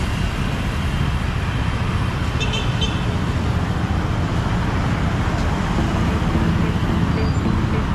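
Roadside traffic: vehicles passing on the street, a steady low rumble of engines and tyres, with a short high chirping sound about two and a half seconds in.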